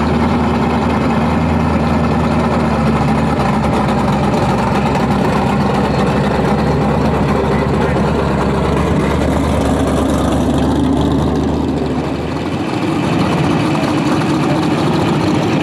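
A late-1970s Pontiac Firebird's engine idling as the car rolls slowly past, a steady low engine note. About twelve seconds in the note changes as it moves off and a hot rod roadster's engine comes closer.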